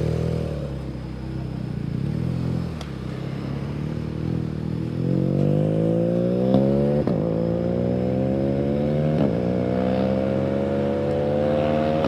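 Small motorcycle engine running low for the first few seconds, then accelerating from about five seconds in. Its pitch climbs through each gear and drops sharply at three upshifts, the last near the end.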